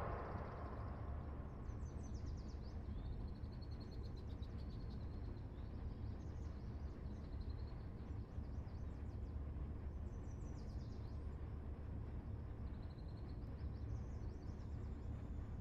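Woodland ambience: small birds chirping and trilling now and then over a steady low rumble. A broad hiss fades away in the first second.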